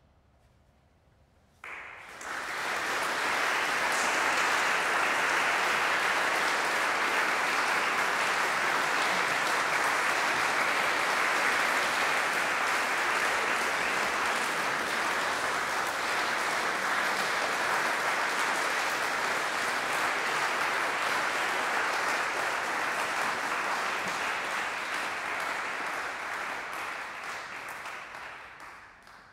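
Audience applauding: it starts abruptly after a brief silence, holds steady, and dies away near the end.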